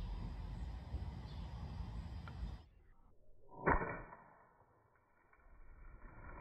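BB pistol shot bursting a jumbo water balloon, heard slowed down: the outdoor background turns muffled about two and a half seconds in, then a single deep, drawn-out crack about a second later that fades slowly.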